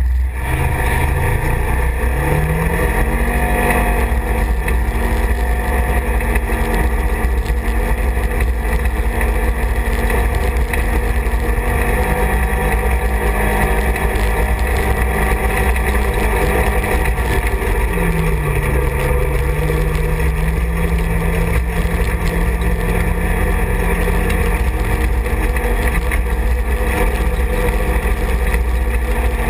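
Side-by-side UTV engine running while driving, heard from the cab over a heavy low rumble. The engine note rises about two seconds in, holds steady, then drops back around the middle and settles.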